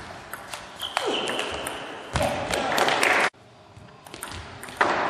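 Table tennis ball clicking off bats and the table during a rally, with a short high squeak about a second in. About two seconds in there is a loud burst of noise from the hall, which cuts off abruptly a second later.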